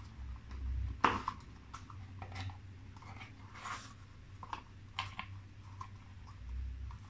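Cardboard and paper packaging rustling and scraping as a small cosmetics box is handled and a jar taken out of it, in scattered short scrapes and clicks, the sharpest about a second in.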